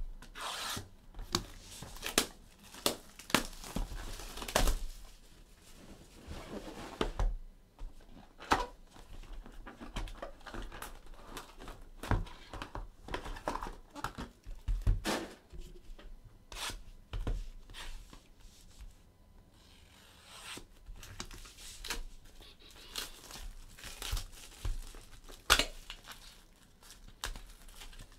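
Plastic wrapping torn and crinkled by hand as a sealed trading-card hobby box is opened and its wrapped card packs handled: irregular tearing and crackling with many scattered sharp rustles.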